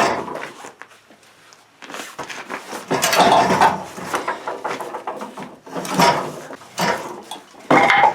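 Bombardier Rally ATV engine being wrestled out of the frame: irregular bursts of metal clunking, knocking and scraping, loudest about three seconds in and again near the end.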